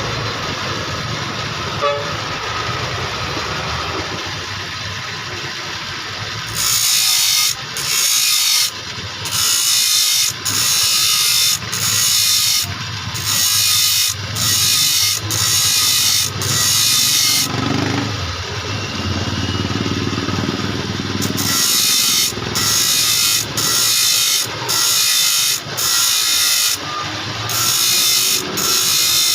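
Sharpening grinder working on saw-blade teeth: the motor runs steadily, then grinds in repeated harsh hissing passes of about a second each, roughly one a second with short breaks.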